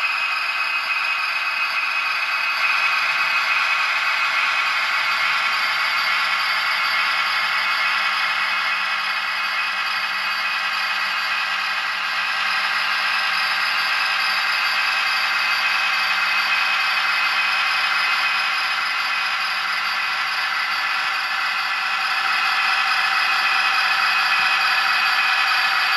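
Hornby OO gauge Class 67 model locomotive's Zimo sound decoder playing the recorded GM-EMD diesel engine running steadily as the model moves, heard through its small onboard speaker: thin and tinny with no bass, slightly louder in the last few seconds.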